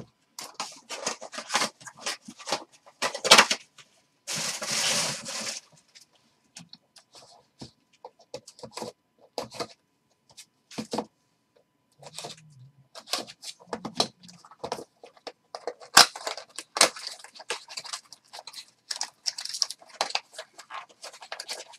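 Hands opening sealed trading-card boxes and packs: irregular crinkling, rustling and tearing of plastic wrap and cardboard, with a longer tear about four seconds in and a sharp click about sixteen seconds in.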